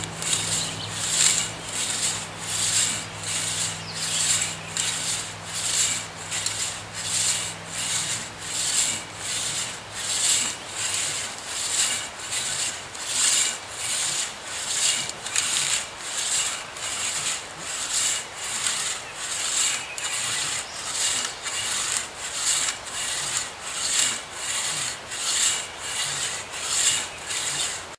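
Two-man crosscut felling saw being pulled back and forth through a sycamore trunk: steady rasping strokes of the teeth in the wood, in an even rhythm of a little over one stroke a second.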